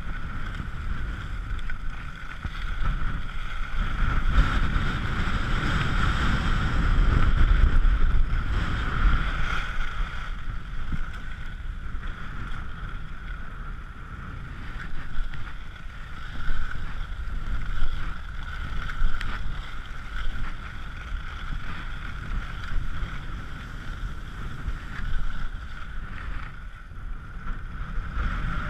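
Wind rushing over a chest-mounted GoPro as a skier glides down a groomed slope, with the skis sliding over the snow. The rush swells a few seconds in, then eases and comes and goes with the skier's speed.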